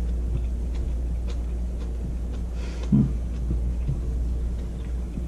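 A steady low hum, with a few faint clicks and one short low thump about three seconds in, as a man chews a mouthful of food.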